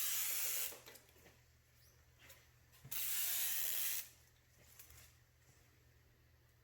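Clear protective film being peeled off freshly applied motorcycle rim tape, two crackly peeling rips about a second each, one at the start and one about three seconds in.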